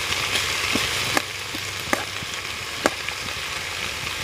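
Sliced vegetables sizzling in a pan over a wood fire, with a spoon stirring and clicking against the pan a few times.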